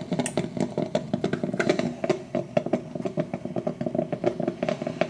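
Black + Decker thermal drip coffeemaker brewing, with a steady rapid gurgling and sputtering as its heater pushes hot water up to the brew basket.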